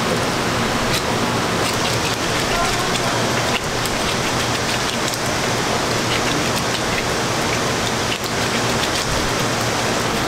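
Steady hiss of kitchen background noise, with faint scattered clicks and rustles from gloved hands rounding balls of pizza dough in a floured tray.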